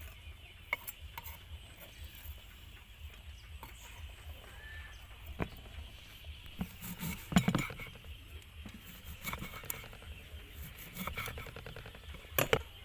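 Scattered knocks and taps of a kitchen knife on a wooden cutting board as red onion, garlic and limes are cut and scraped into a bowl. The loudest knock comes about seven and a half seconds in, and a quick cluster of taps near the end.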